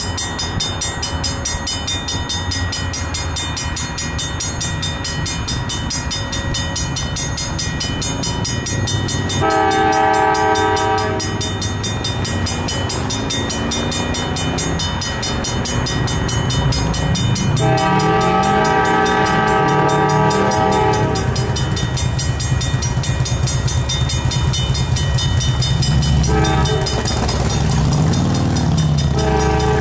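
Freight train led by a GE C40-8W diesel-electric locomotive rumbling toward a grade crossing, sounding its air horn in the crossing pattern. There are two long blasts, the second about three seconds long, then a short one, and a last long one starts just before the end.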